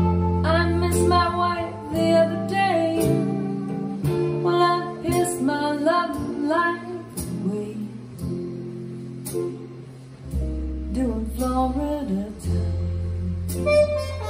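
A song playing back through ATC SCM19 v2 stand-mount loudspeakers in a room: an instrumental passage with a lead line of sliding notes over a deep bass, which drops out after about a second and comes back about ten seconds in.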